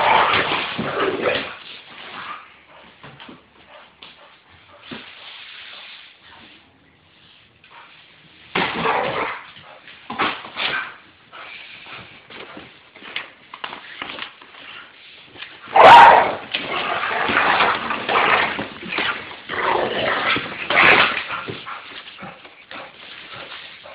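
Pit bull attacking a box, barking and whining in bursts while the box is shoved and scraped over the floor. The activity comes in three spells, with a sharp bang about sixteen seconds in, the loudest moment.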